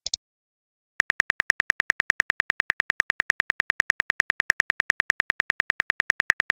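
Simulated phone-keyboard typing sound of a texting-story app: a rapid, even train of short clicks, about nine a second, starting about a second in as a message is typed out letter by letter.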